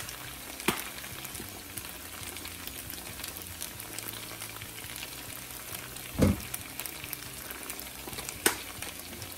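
Sliced potatoes frying in oil in a nonstick pan, a steady soft sizzle. A few light clicks come through, and a dull knock about six seconds in.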